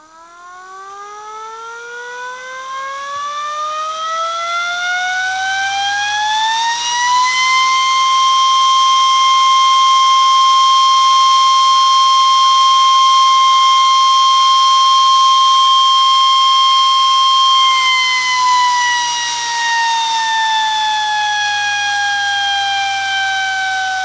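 Homemade tornado siren, a small electric motor spinning an air chopper inside a ring of paper horns and powered by a model-train power pack, winding up from a low tone to a steady high wail over about seven seconds. It holds that wail for about ten seconds, then winds down to a lower pitch near the end.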